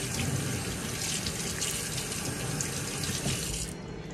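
Water running from a kitchen faucet into the sink while she washes up, shut off abruptly near the end.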